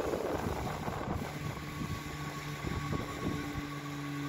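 Wind buffeting the microphone in an irregular low rumble. About halfway through, a few steady held tones come in and change pitch near the end.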